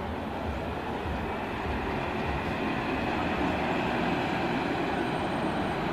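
A Transjakarta city bus running past in street traffic: a steady rumble of engine and road noise.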